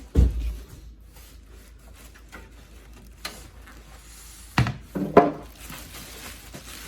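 A computer case being pulled out of its cardboard box and packing: a heavy thump right at the start, then rubbing and rustling, a sharp click, and two knocks a little past the middle.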